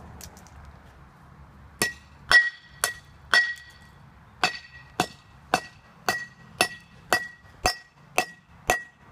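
Repeated hard strikes on an already smashed iPhone 4, about two a second from about two seconds in, each impact with a short ringing note.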